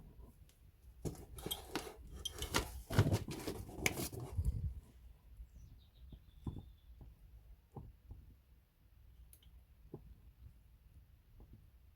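Clattering and clinking of hand tools and parts being handled, busiest in the first few seconds, then scattered single clicks and knocks.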